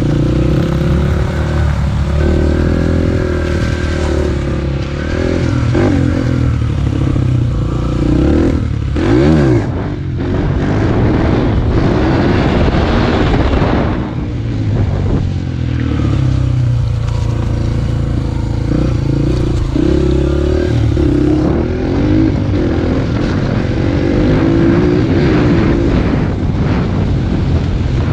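Dirt bike engine running under way, its revs rising and falling repeatedly as it is ridden along a rough trail, with a quick rev up and back down about nine seconds in.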